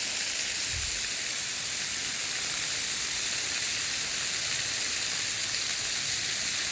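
Small creek waterfall pouring over a rock lip, a steady, mostly high-pitched rush of falling water.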